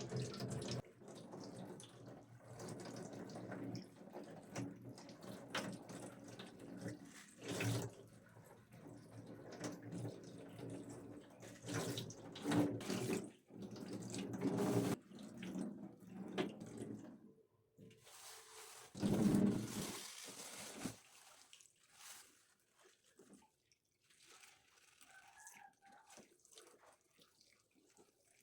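Water running from a kitchen tap into a sink while something is rinsed, with louder splashes now and then. The flow stops about three quarters of the way through, leaving only a few small knocks.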